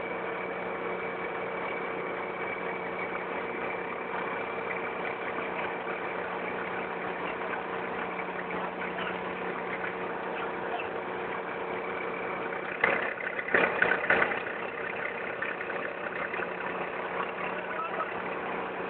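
Tow truck engine idling steadily, a constant hum. About thirteen seconds in there is a second or so of clanking and rattling.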